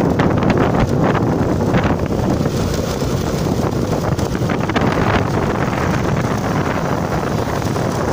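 Wind buffeting the microphone of a camera carried on a moving vehicle, a loud, fluttering rush over the vehicle's steady running noise.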